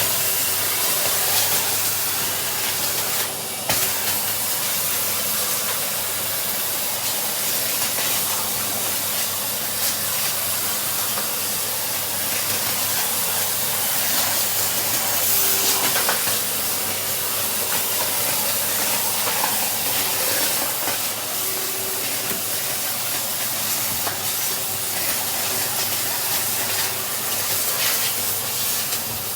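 Henry cylinder vacuum cleaner running, a steady rushing hiss of suction over a faint constant hum, with a brief dip in sound about three seconds in.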